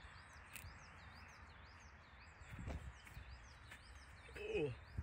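Small songbirds singing in a forest, quick wavy high notes repeated again and again, over a steady rustling background hiss. Near the end a short human voice sound falls in pitch.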